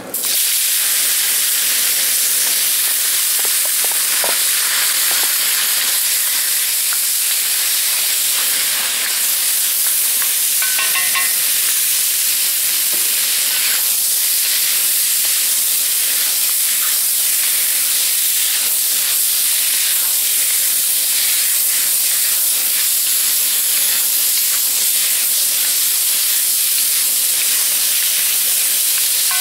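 Thin-sliced soy-marinated beef hitting a hot cast-iron wok and sizzling loudly, a steady frying hiss that starts abruptly as the meat goes in, while a wooden spoon stirs it.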